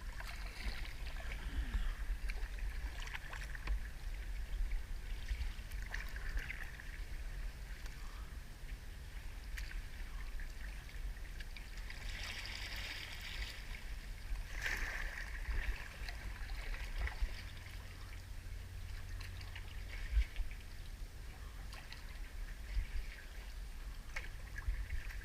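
Kayak paddle dipping into calm sea water, with irregular soft splashes and trickling drips, over a steady low rumble.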